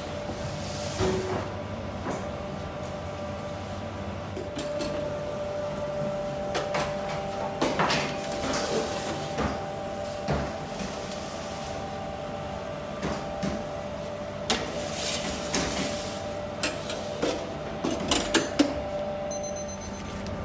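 Steady hum of bakery machinery with scattered clanks and knocks as metal loaf pans and the oven door are handled.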